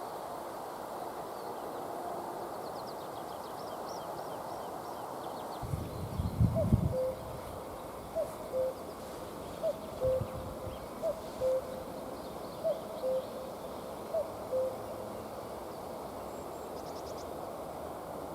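Common cuckoo calling "cuck-oo" about five times, roughly every second and a half, each call a higher note dropping to a lower one. A brief low rumble comes about six seconds in, and faint high twittering of small songbirds sits in the background.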